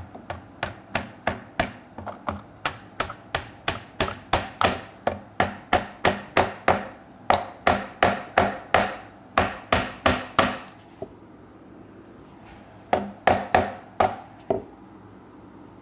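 Claw hammer tapping glued mahogany wedges into the kerfs of a stool's through-tenons, spreading the tenons tight: quick, even taps about three a second that grow louder, then a pause of about two seconds and a final burst of about five taps.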